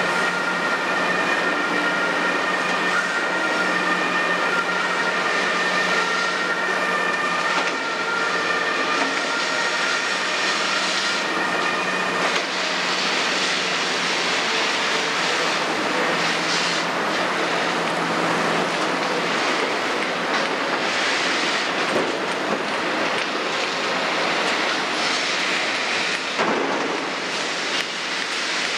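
Kobelco 350 excavator with its Hino six-cylinder diesel working under load as it digs and swings to fill a dump truck, a steady mechanical din. A high whine of several steady tones runs through the first twelve seconds and then stops.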